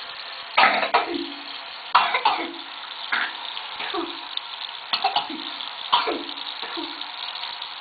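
A child coughing repeatedly to clear her throat, about a dozen short coughs roughly a second apart, over water running steadily from a bathroom tap.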